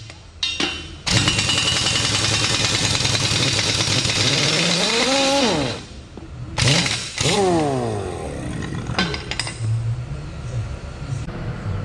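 Impact wrench working the track pad bolts in long bursts. Its motor whines up and back down at each trigger pull, with a fast hammering rattle in between and brief pauses.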